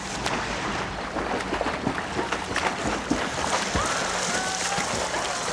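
Pool water splashing and churning as swimmers thrash and play, with many short slaps of water throughout. A few brief high voice cries rise and fall about four seconds in.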